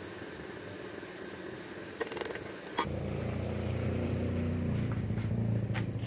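Steady whir and rush of a forced-air blower feeding a bucket foundry furnace, with sharp metallic clanks of tongs and lid. About three seconds in, after a clank, the hum turns lower and fuller.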